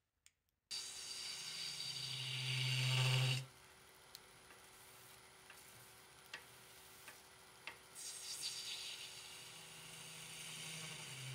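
A turning gouge cutting into a spinning wood-and-resin bowl on a lathe: a loud cut with a low hum begins about a second in and stops after a few seconds. Then comes a quieter stretch with a steady lathe tone and a few light ticks, and the cutting starts again near the end.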